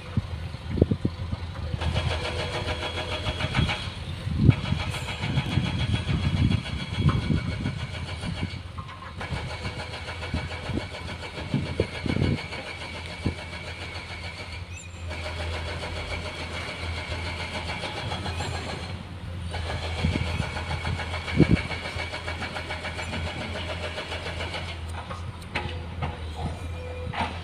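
Excavator and dump truck working at a distance: steady engine drone with a high whine, dipping briefly now and then, and scattered low thumps.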